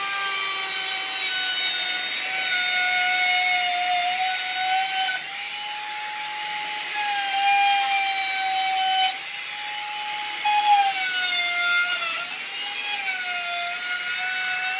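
Compact router trimming the overhanging edge of plastic laminate glued to a tabletop: a steady, loud motor whine with a cutting hiss, its pitch wavering and dipping now and then as the bit meets the edge.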